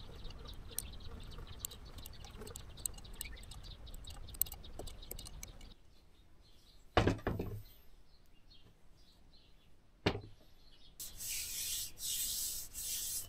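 Hands handling a disassembled electric hub motor: light clicks and ticks, then two loud knocks about three seconds apart as the heavy motor is moved on the bench. Near the end there are a couple of seconds of steady rubbing inside the open magnet drum of the rotor.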